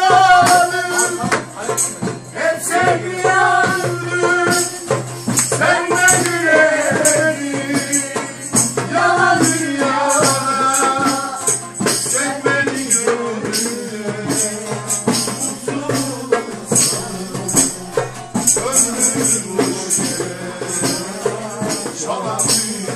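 Live Turkish folk music: a saz plucked, with tambourines jingling steadily in rhythm and a hand drum, while several voices sing a melody over it.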